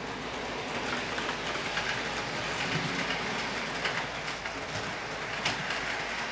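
HO scale model train (an E60CP locomotive with three Amfleet coaches) running on sectional track: a steady whirr of motor and wheels with many small rapid clicks as the wheels pass over rail joints, and one sharper click about five and a half seconds in.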